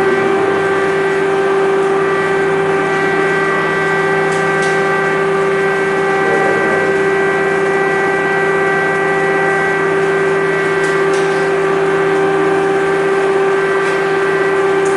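Air-raid siren sounding one long, steady tone at full pitch: an air-raid alert.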